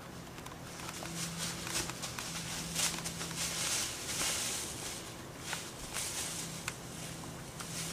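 Dry fallen leaves rustling and crackling in irregular bursts as a crossbow-shot deer kicks and thrashes in the leaf litter. The rustling is loudest about three to four seconds in.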